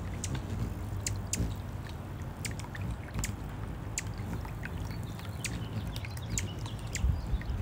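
Small electric fountain pump in a planter-saucer birdbath, its spout of water bubbling and trickling, with a low steady hum underneath and scattered sharp high ticks.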